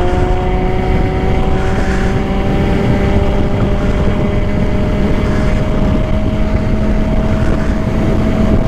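Ola S1 Pro electric scooter at high speed, accelerating toward top speed: a steady whine that slowly rises in pitch, over heavy wind rumble on the microphone.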